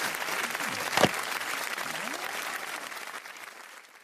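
Applause that fades away over the last second or so, with one sharp knock about a second in.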